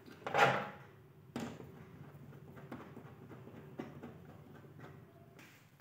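Handling noises from a screwdriver and small plastic parts on a TV's plastic back panel: a loud rustling knock about half a second in, a sharp click at about a second and a half, then a few lighter clicks.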